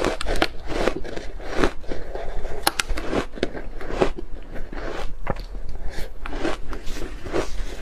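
Bar ice dusted with matcha powder being bitten and chewed: a run of sharp, irregular crunches and cracks as the ice breaks between the teeth.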